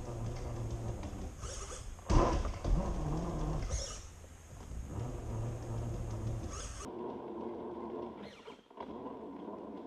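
Traxxas TRX-4 RC crawler's electric motor and gear drivetrain whining as it drives, the pitch shifting with throttle, with a sharp knock about two seconds in. The sound changes abruptly about seven seconds in.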